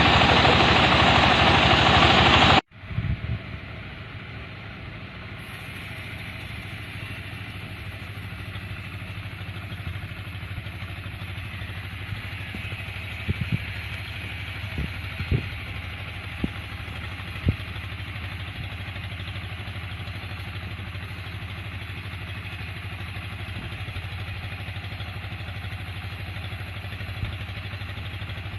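Loud, even sawing noise of a sawmill cutting a log, which stops abruptly about two and a half seconds in. After that the sawmill's engine runs steadily, with a few sharp knocks in the middle.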